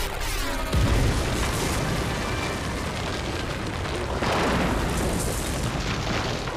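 Cartoon sound effect of rock blasting apart as a winged demon beast breaks out of the ground: a sudden low boom about a second in, then a continuing rumble of breaking rock with a second loud surge around four seconds in.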